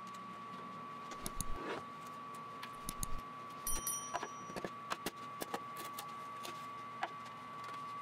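Half-inch plywood pieces handled on a CNC router table: the routed-out centers knocked free of the panel and set down, with scattered wooden knocks and clatters and a brief metallic clink near the middle, over a faint steady whine.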